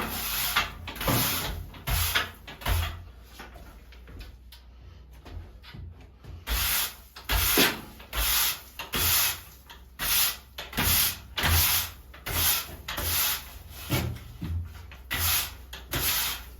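Repeated scraping strokes: a few uneven strokes at first, a quieter stretch, then from about six seconds in a steady run of about one and a half strokes a second.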